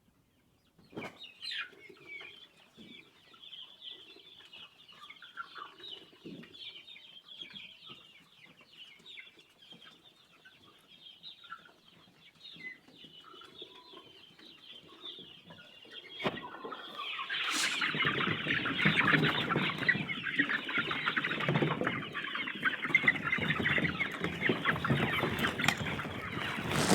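A flock of chickens clucking. It is faint at first, then much louder and denser from about two-thirds of the way in.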